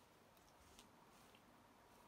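Near silence: faint room tone with a few faint small ticks, about three in the first second and a half.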